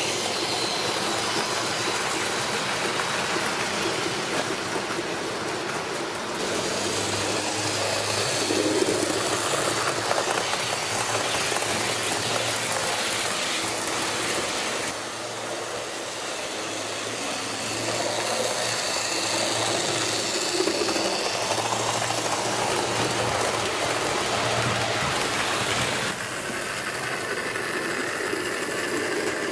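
Model train running on a layout: a steady rolling noise from the wheels on the track with a small electric motor humming on and off. The sound changes abruptly a few times.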